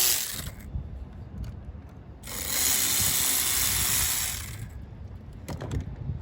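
A power ratchet runs for about two seconds, spinning a bolt out, after a short sharp rattle of the tool right at the start.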